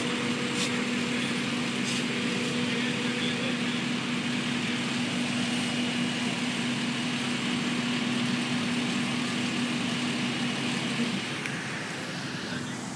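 Fire apparatus engine running steadily over a rushing roadway noise: a constant, even drone that drops away about eleven seconds in.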